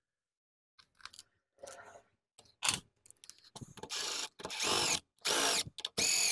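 DeWalt cordless driver running bolts into a chainsaw's cylinder base in four short bursts, the motor spinning up and winding down each time, after a few light clicks of bolts being handled.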